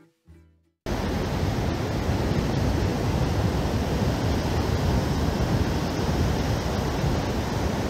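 The last notes of a guitar tune fade out, then about a second in a steady wash of ocean surf breaking on the beach starts, mixed with wind.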